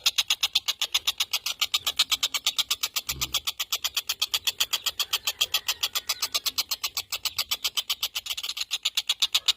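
Tengkek buto kingfisher calling an unbroken, fast, even rattle of sharp notes, about eight or nine a second.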